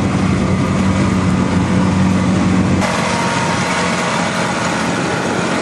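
Outboard motor of a bamboo fishing raft running steadily under way: a continuous low hum under a hiss. About three seconds in the sound changes abruptly, with a brighter hiss.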